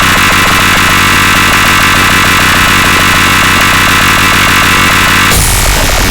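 Loud, dense electronic drone of many stacked tones with a fast, even rattling pulse: a 'dark MIDI' rendition of an iPhone ringtone, with the notes piled up into a distorted mass. The texture shifts about five seconds in.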